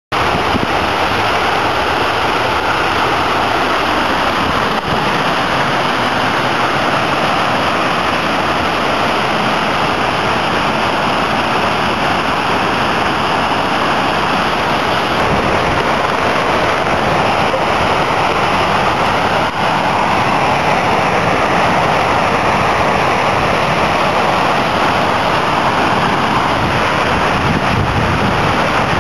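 Muddy floodwater rushing over a concrete dam face, a loud, steady rush of water that does not let up.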